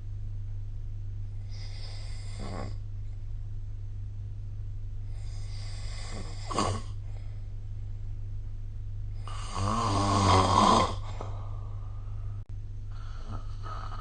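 A sleeping person snoring: four breaths a few seconds apart, the third, about ten seconds in, much the loudest and buzzing with a pitch. A steady low hum runs underneath.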